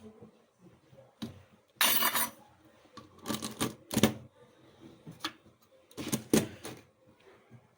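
Clatter and knocks of kitchen containers being handled: a half-second scraping rattle about two seconds in, then several sharp knocks and clinks spread over the next few seconds.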